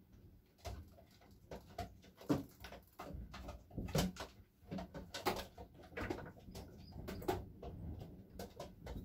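Racing pigeons pecking at mineral grit in glass pots: a string of sharp, irregular beak clicks and taps, with some low pigeon cooing.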